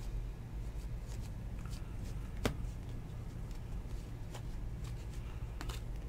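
A stack of 2019 Topps baseball cards being flipped through by hand, one card at a time, making a string of irregular light clicks and snaps as each card slides off the stack. The sharpest snap comes about two and a half seconds in, over a steady low hum.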